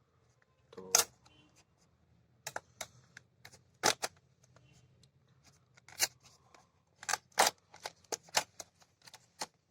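Hands handling and opening a small cardboard product box and its packaging: scattered sharp clicks, taps and crinkles at uneven intervals.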